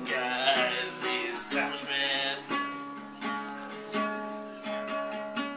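Nylon-string classical guitar strummed in a simple chord pattern, each chord left to ring.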